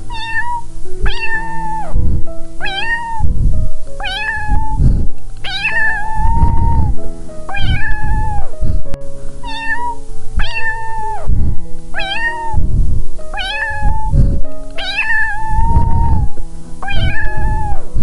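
Cat meowing over and over, about one meow a second, with background piano music.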